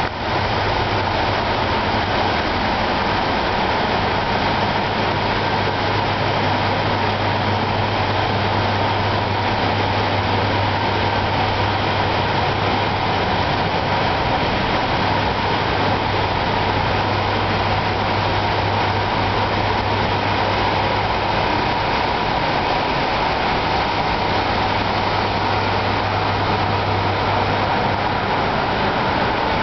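Steady rushing noise of rack server fans and datacentre cooling, with a low hum under it that fades near the end.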